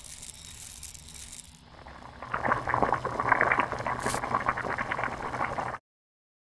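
A pot bubbling at a simmer, a dense crackle of many small pops over a low hum, that sets in about two seconds in after a faint hiss and cuts off abruptly near the end.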